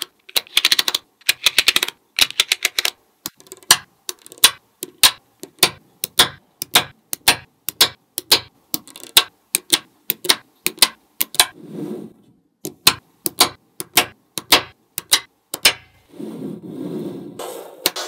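Small magnetic balls clicking as pieces snap onto a slab of balls: rapid rattling clusters of clicks at first, then single sharp clicks about two a second. A softer, low rolling rumble comes about two-thirds of the way in and again near the end.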